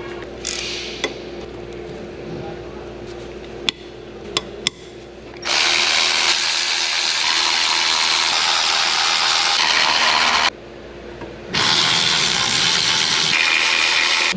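Clicks and clinks of hand tools on metal, then a power tool running in two loud, steady bursts of about five and three seconds, taking out a fastener.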